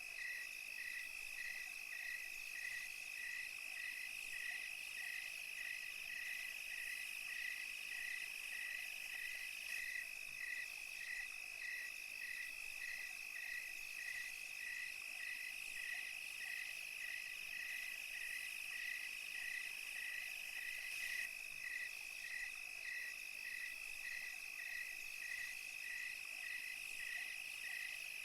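Night insect chorus of crickets: one steady high-pitched trill, with a second insect chirping evenly about twice a second.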